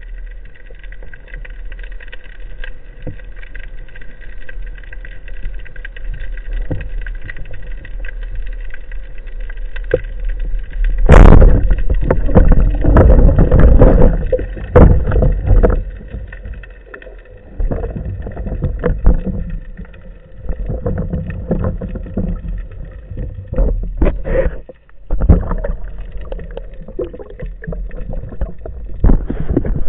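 Heard underwater: a low steady hum, then about eleven seconds in a sudden sharp crack, the band-powered speargun firing. Loud rushing water noise and knocks follow as the diver takes hold of the speared mullet and swims up to the surface.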